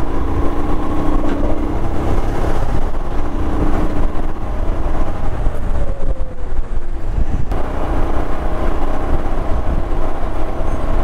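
Royal Enfield Himalayan's single-cylinder engine running at steady riding speed, heard from the saddle under heavy wind and road noise, with a tone that falls in pitch around the middle.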